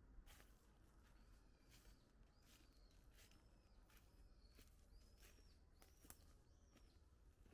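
Faint footsteps crunching on fallen leaves, with a bird repeating a short rising-and-falling whistle about once a second.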